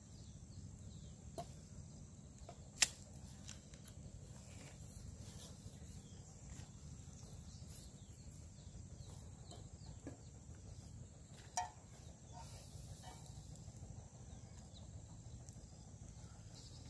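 Quiet outdoor ambience with faint bird and chicken calls over a low steady hum, broken by a few sharp cracks from the wood campfire being tended, the loudest about three seconds in.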